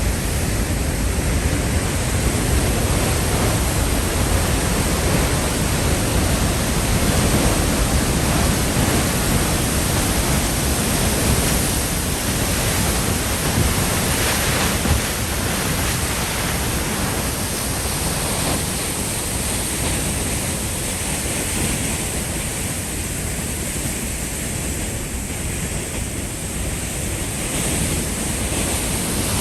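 Peričnik waterfall running high after heavy rain: a loud, steady rush of falling water.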